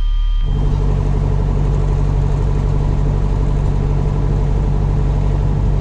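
Piper Cherokee's piston engine running, heard in the cabin; about half a second in its sound jumps to a louder, steady run with a strong low hum, as power is added to start taxiing.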